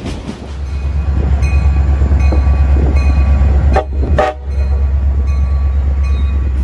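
A train passing close by, with a loud, steady low rumble. Two short, sharp sounds come about four seconds in.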